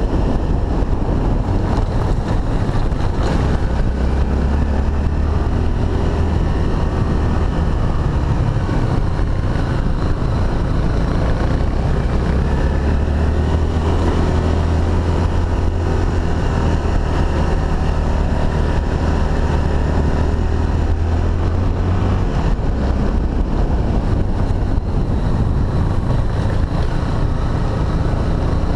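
Honda XRE300's single-cylinder four-stroke engine running steadily under way, with wind noise on the microphone. The deep engine note weakens about three-quarters of the way through.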